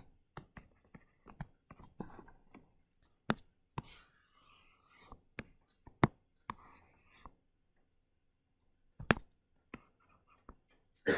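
Stylus working on a tablet screen: scattered light taps and clicks, with a few short soft scratchy strokes between them.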